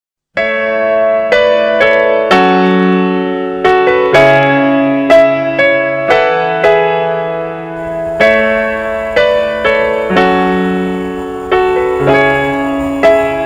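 Background piano music: a slow, gentle piece of struck notes and chords, each note fading after it is played.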